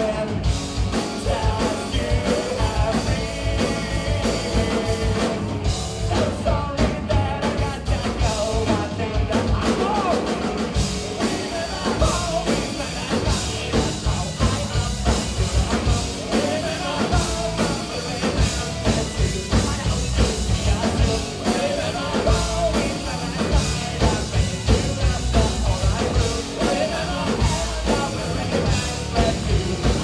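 Live rock band playing: electric guitars, bass and drum kit, with a male singer singing into a microphone.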